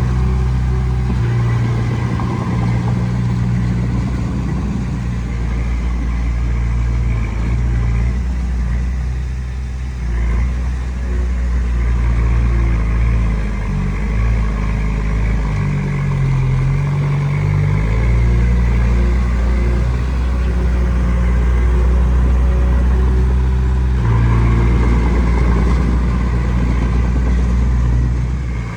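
Komatsu D20P bulldozer's diesel engine working under load as it pushes sand, its engine speed rising and falling several times.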